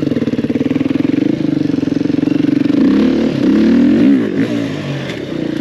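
Enduro dirt bike engine running under throttle at a steady pitch, then revving up and down a few times past the middle and easing off near the end.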